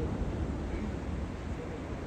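Steady low rumble of a Comeng electric suburban train pulling away, with no horn sounding.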